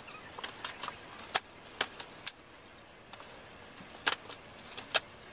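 Cardboard boxes being set down and stacked on a hand truck: scattered light knocks and taps, a few of them sharper.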